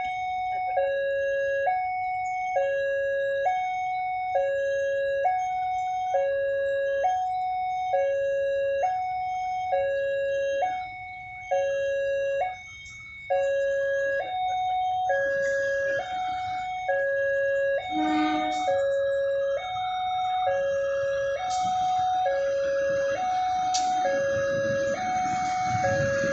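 Railway level crossing warning alarm sounding: an electronic two-tone signal alternating between a lower and a higher note, each held for just under a second. It warns of an approaching train. In the last few seconds the low rumble of an approaching diesel locomotive rises beneath it.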